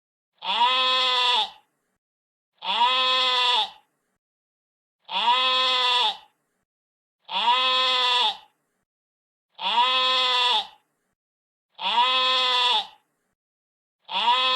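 A sheep bleating: the same call repeated seven times, each bleat about a second long and coming about every two seconds, with dead silence between.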